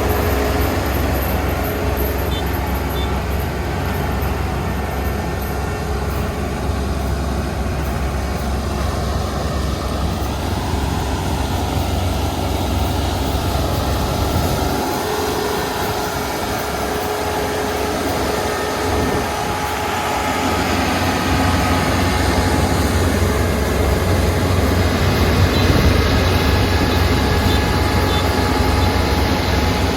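Kubota ER470 combine harvester running steadily while harvesting: engine and threshing machinery under load. The low drone thins out briefly about halfway through, then it grows louder toward the end.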